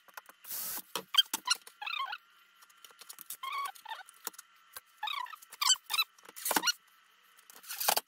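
Cordless drill-driver running screws through a metal door-mounting bracket into a cupboard door panel, in several short bursts with squeaky chirps between.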